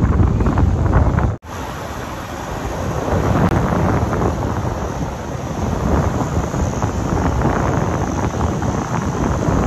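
Heavy wind buffeting the microphone, cut off abruptly about a second and a half in; after the cut, a steady rush of wind over the microphone with the noise of a vehicle driving on beach sand.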